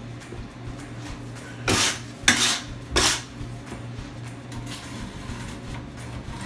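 Pointed trowel scraping tile adhesive: three short scrapes in quick succession about two seconds in, over a steady low hum.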